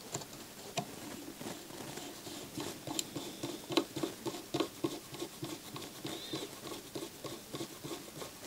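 A run of small clicks and taps, several a second, from plastic and metal parts of a CD player's drive mechanism being worked by hand and pushed back into place.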